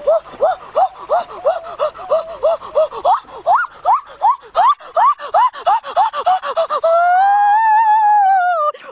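A young man's voice gasping out short pitched cries, about three a second, each rising and then falling. Near the end they give way to one long yell of about two seconds that rises and then falls in pitch.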